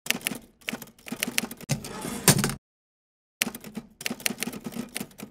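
Typewriter keys clacking in quick runs of keystrokes, a typing sound effect. There is one run, then a brief pause about two and a half seconds in, then a second run.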